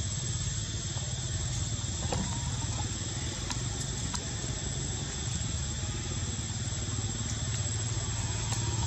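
A steady low engine hum that holds the same pitch and level throughout.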